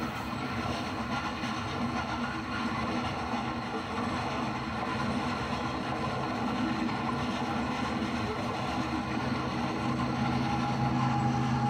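HO scale model freight train rolling past: a steady locomotive engine hum over the rolling noise of wheels on the track, the hum growing a little stronger near the end.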